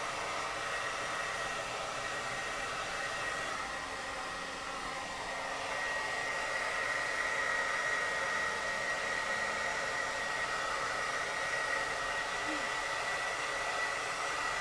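Handheld hair dryer running on its cold setting, blowing on curly hair: a steady rush of air with a thin high whine that grows a little stronger about six seconds in.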